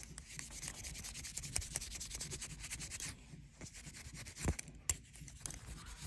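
Close, rapid scratchy rubbing as a cotton ball is scrubbed over a tarnished metal belt buckle, with a couple of sharper clicks late on.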